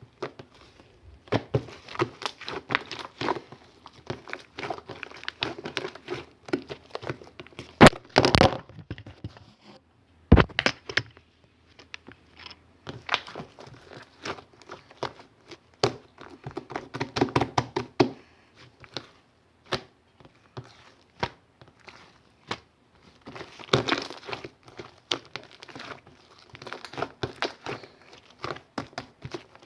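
Irregular crinkling and crackling of something being handled, coming in clusters, with two louder knocks about eight and ten seconds in.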